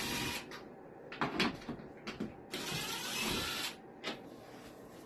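Cordless drill running in two short bursts, one right at the start and another of about a second from about two and a half seconds in, driving screws out of a plywood floor panel.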